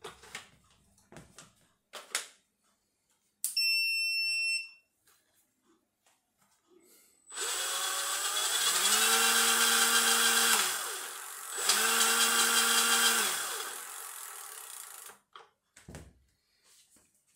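A few light clicks and a short electronic beep, then a Stacyc electric balance bike's motor spinning the rear wheel through its chain drive, powered from a Parkside X20V tool battery via an adapter: the whine rises in pitch, holds, winds down, and then does the same a second time.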